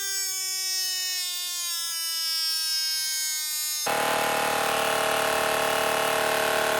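Battery-powered portable tyre inflator running as it pumps a bicycle tyre toward its 60 PSI auto-shutoff. Its hum falls slowly in pitch for about four seconds, then changes abruptly to a louder, lower, denser hum.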